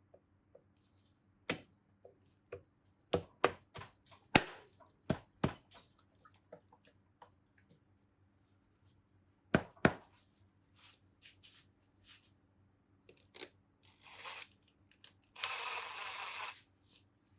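Sharp metal clicks and knocks of engine parts and tools being handled during reassembly, coming in small clusters. Near the end there is a short burst of rustling noise, then a longer one.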